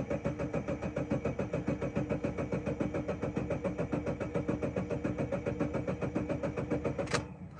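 Starter cranking a 2013 Subaru Crosstrek's 2.0-litre flat-four in clear-flood mode, with the throttle floored so the engine turns over without firing, in an even, rapid rhythm that stops suddenly about seven seconds in. The no-start crank primes a freshly fitted oil filter and builds oil pressure after an oil change.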